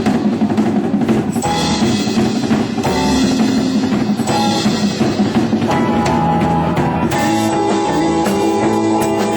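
Band music led by a drum kit playing a busy, pounding beat. Sustained pitched instrument notes come in more clearly about seven seconds in.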